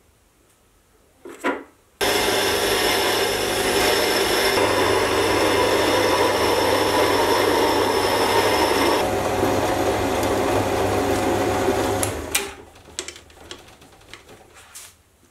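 Sieg C3 mini lathe running, turning a steel tool post stud with a carbide insert tool, a steady machine hum with the scrape of the cut. It starts suddenly about two seconds in, runs for about ten seconds, then winds down, followed by a few small clicks.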